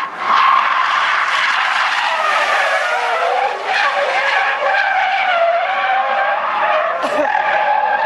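A sedan's tyres squealing as it slides sideways in a drift on asphalt: a long, wavering screech that bends up and down in pitch, with a brief break about seven seconds in.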